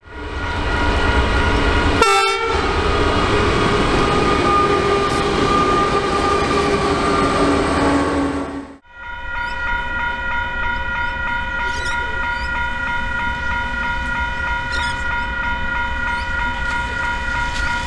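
Level crossing's electronic bell (a WCH 777 e-bell) ringing as a steady tone, with a freight train's diesel locomotives rumbling loudly past. The sound cuts off abruptly about nine seconds in and resumes at once with the bell, now over a lighter rumble from locomotives approaching slowly.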